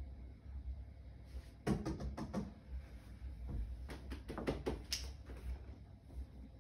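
Two clusters of light knocks and clicks, the first about a second and a half in and the second about three and a half seconds in, over a low steady hum.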